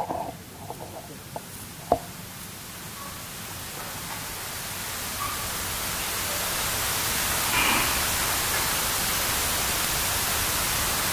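An even hiss of noise that swells gradually louder. A few sharp knocks come in the first two seconds, the loudest about two seconds in.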